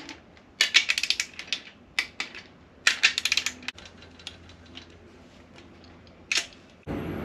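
Socket ratchet on a torque wrench clicking in two quick runs, about a second in and three seconds in, with single clicks between, as the main bearing cap bolts of a Honda K24 block are run down to 22 lb-ft. A steady rushing noise starts suddenly near the end.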